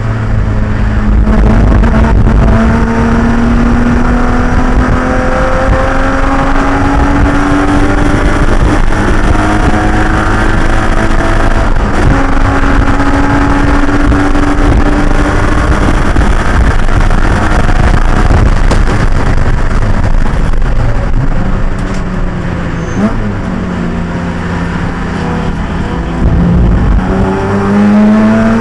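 Race car engine under hard acceleration, its pitch climbing in long pulls and dropping back at each gear change. About 21 seconds in it eases off to a lower, steady note, then climbs again near the end as it accelerates.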